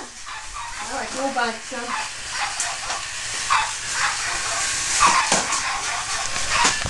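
Dog yelping and whimpering: a run of short wavering whines about a second in, then scattered single yelps over a steady hiss.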